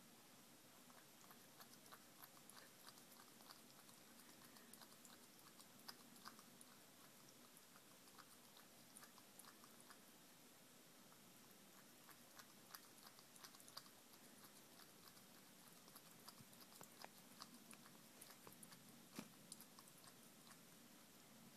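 A Himalayan cat chewing and eating, heard faintly as irregular small clicks and crunches.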